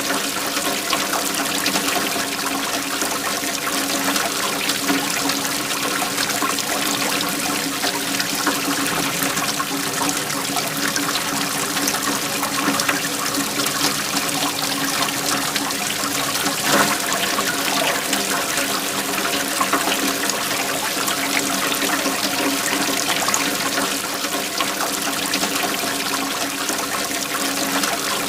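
Waterfall: water pouring and splashing steadily, without let-up.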